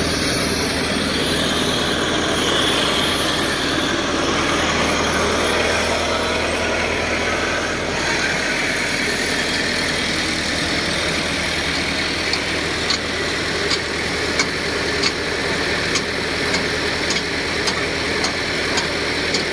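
Diesel tractor engines running steadily while chained tractors pull a stuck tractor-trolley. From about two-thirds of the way in there is a sharp ticking, about twice a second.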